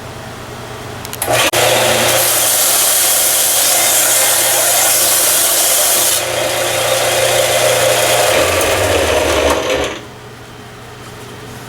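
A handheld power tool grinding wood, evening out the recess cut into a wooden table saw insert. It starts about a second in, runs steadily and cuts off near the end.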